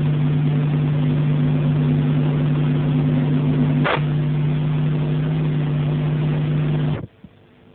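Steady helicopter cabin drone, a constant low hum of engine and rotor noise under a hiss. There is a brief click just before four seconds in, and the drone cuts off suddenly about seven seconds in.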